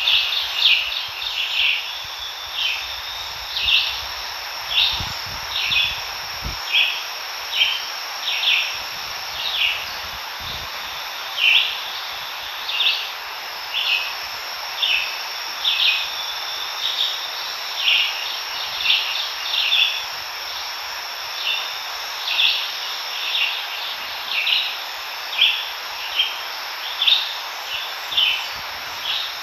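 Chorus of insects in the woods: short calls repeating about once a second from several animals at once, over a steady high-pitched drone.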